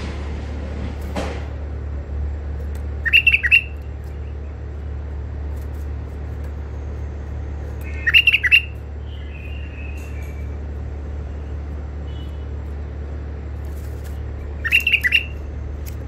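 White-eared bulbul calling in a cage: three short bursts of quick, clear notes about five seconds apart, with a few fainter notes between, over a steady low hum.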